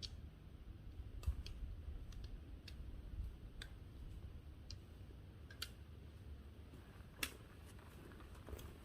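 Footsteps on an icy, crunchy trail: faint, sharp clicks and crunches at irregular intervals over a low rumble.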